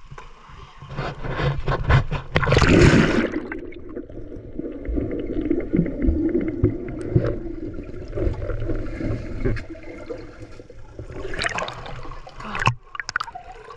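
River water splashing as the microphone plunges below the surface, then a muffled underwater rumble with small clicks while a person swims under water. Splashing returns as it breaks the surface near the end.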